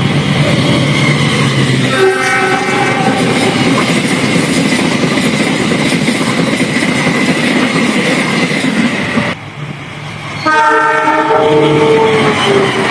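Passenger train running on the rails with a steady clatter, its horn sounding a chord about two seconds in and again at about ten and a half seconds. The level drops abruptly for about a second just before the second horn.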